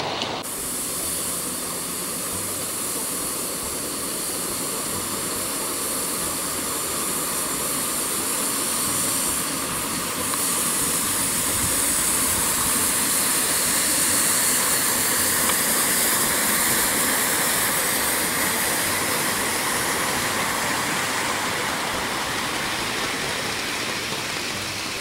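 Live-steam scale model locomotive hissing steam steadily, with no chuffing beat; the hiss grows a little louder about ten seconds in.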